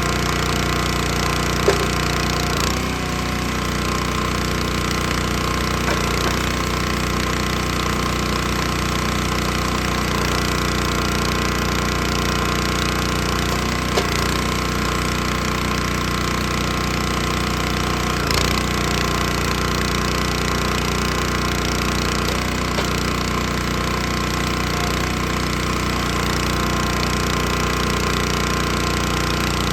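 Small gasoline engine running steadily at one constant speed, with a few light knocks or clicks over it.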